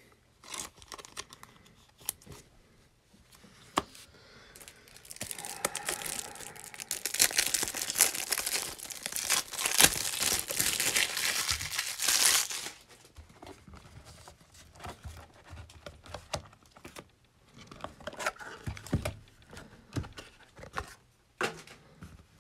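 Plastic wrapper of a Donruss Optic basketball trading-card pack being torn open and crinkled, loudest and most continuous from about five seconds in to about twelve and a half seconds. Softer rustling and light taps of handled packs and cards come before and after.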